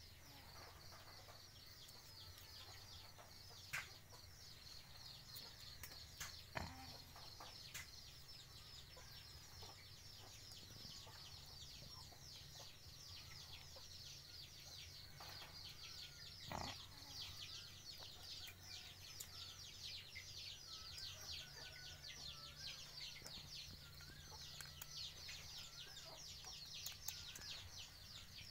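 Quiet farmyard ambience: a faint, dense high chirping runs throughout over a low hum, with a few soft knocks and, in the last third, faint wavering bird-like calls.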